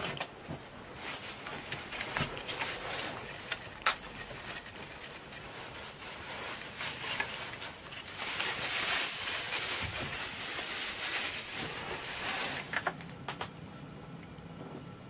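Kittens eating from a foil dish and plastic containers: rustling and crinkling with scattered small clicks and taps. A denser stretch of rustling starts about eight seconds in and lasts around five seconds.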